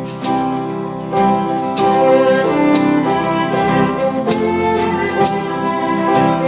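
Background music with bowed strings playing melody lines over a steady percussive beat.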